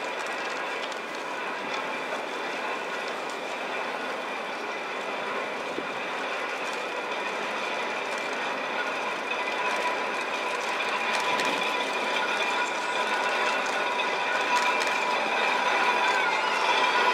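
Railway turntable rotating under the weight of an EF81 electric locomotive: a steady mechanical whirring and grinding from the turntable's drive and running gear, with a few thin, held squealing tones, slowly growing louder toward the end.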